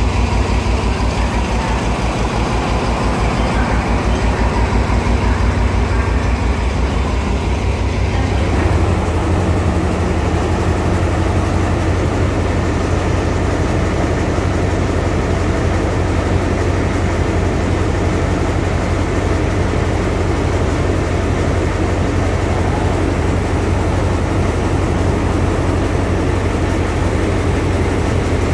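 Alsthom diesel-electric locomotive No. 4305 running with a low, rhythmic throb. About nine seconds in, its engine note rises and fills out as the locomotive moves off.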